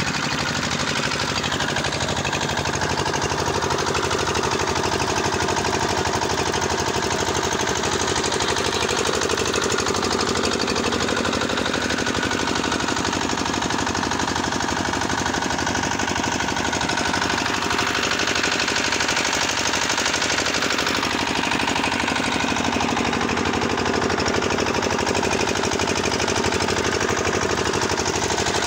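Small stationary engine running steadily with a fast, even knock, driving the belts and pulleys of a soil-test boring rig.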